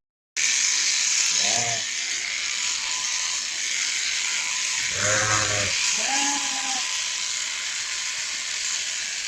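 Three short animal calls, about a second and a half in and twice around five to six seconds in, over a steady hiss.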